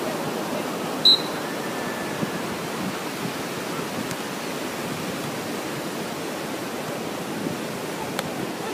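Steady wash of ocean surf and wind noise, with one short, high-pitched beep about a second in.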